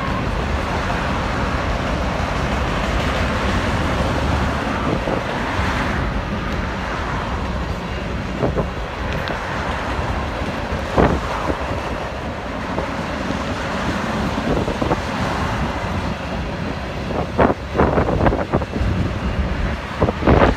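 Freight train of boxcars and covered hoppers rolling steadily past on the track, with a few sharp clicks from the cars, clustered near the end.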